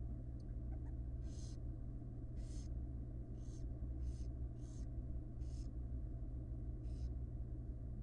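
Barn owls hissing: about seven short, rasping hisses at irregular intervals, over a steady low hum.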